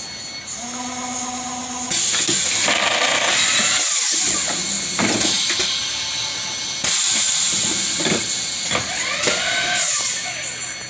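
Shizuoka AN-S CNC vertical milling machine running: a steady whine at first, then from about two seconds in a loud hissing machine noise with sudden changes in level. Rising and falling whines near the end.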